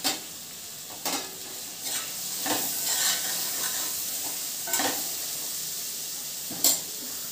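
A spatula stirring a chickpea masala in an open pressure cooker, scraping against the pot a few times over a steady sizzle from the frying masala.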